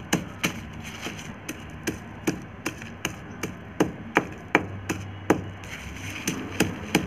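Repeated pounding knocks on a concrete floor, about two to three a second, as lumps of borax and sulphur are crushed into fine powder.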